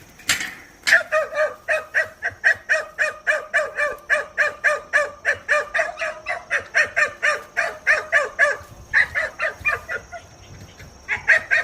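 Kumano hunting-dog puppy yapping rapidly and without pause, about four high-pitched barks a second, barking at a wild boar it is seeing for the first time. The barking breaks off briefly near the end, then a few more barks follow.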